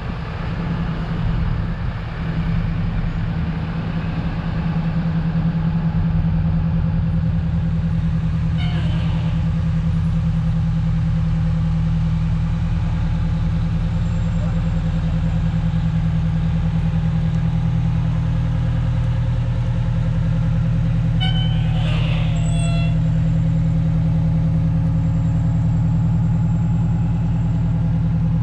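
Engines of fire trucks and an ambulance running as they roll slowly past in a steady line, with two brief toots, one about 9 seconds in and another, longer one about 22 seconds in.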